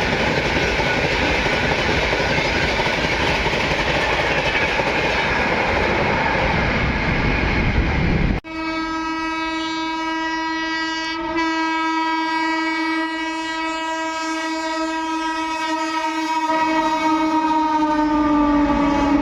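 Indian Railways train passing with a loud rumble and clatter of wheels; then, after an abrupt cut, a locomotive horn sounds one long steady blast for about ten seconds, its pitch falling slightly near the end as the rumble of the train comes back in.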